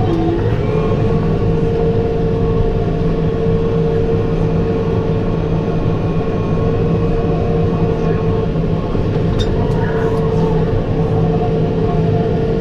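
Tractor pulling a New Holland BR7060 round baler while baling hay, running steadily under load: a constant engine drone with a steady whine over it.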